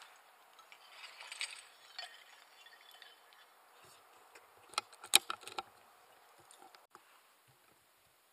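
Faint metallic clinking, then a quick cluster of sharp clicks about five seconds in: the mechanism of an air rifle being worked to reload between shots.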